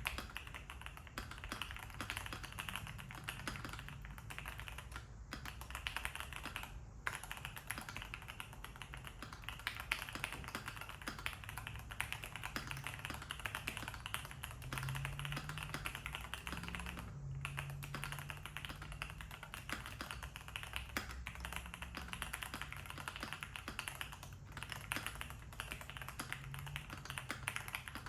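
Fast, continuous typing on a Keychron Q1 V2 mechanical keyboard with Gateron G Pro 3 Yellow linear switches and Cherry-profile keycaps, tape- and force-break-modded. The typing pauses briefly a few times.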